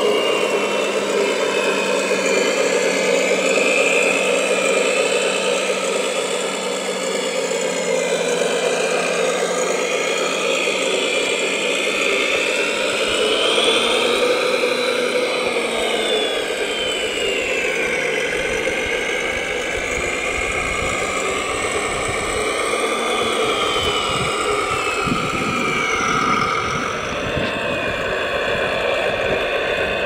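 Electric gear motors of a large remote-control Volvo A45G model dump truck whining steadily. The pitch rises and falls as the motors speed up and slow down, and irregular low rumbles join in during the second half.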